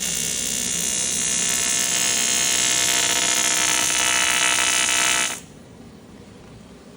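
A high-speed motor whining steadily at a high pitch, then cutting off suddenly about five seconds in.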